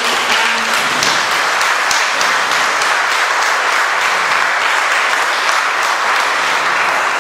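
Audience applauding, many hands clapping at a steady, even level.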